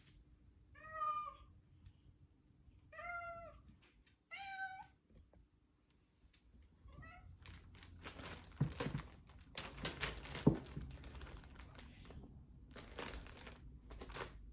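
A cat gives three short, pitched meows close together, then a fainter fourth. This is followed by several seconds of rustling and scuffling with a couple of sharp thumps as it plays.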